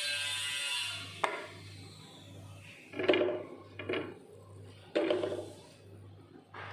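Kitchen utensils knocking against cookware: about five separate short knocks, the loudest about three and five seconds in. Faint background music with a steady low beat runs underneath.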